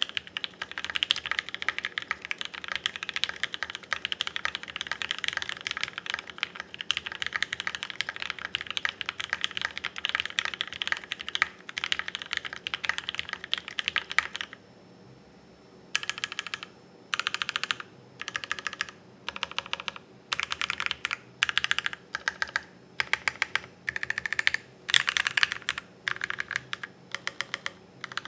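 Typing on a custom ai03 Meridian R2 aluminium-plate keyboard with lubed Gateron Pink Box Ink linear switches and GMK Apollo ABS keycaps: fast continuous keystrokes for about fourteen seconds, then, after a short pause, short bursts of keystrokes separated by brief gaps.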